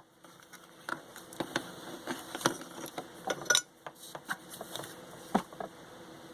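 Small hand tools clicking, tapping and scraping on the headset's fine wiring in irregular strokes, two or three a second with a short pause near the middle, as a rough soldered end is cleaned off.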